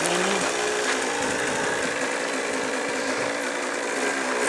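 Small RC model airplane engine running at a steady speed, its pitch wavering a little up and down.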